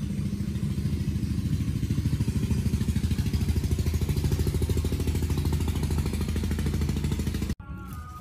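A small engine running steadily with a fast, even pulse, cutting off suddenly near the end.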